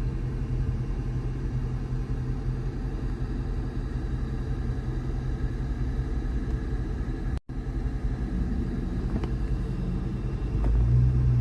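2016 Dodge Charger Scat Pack's 6.4-litre HEMI V8 running with a steady low rumble. It cuts out for an instant about seven seconds in and grows louder near the end.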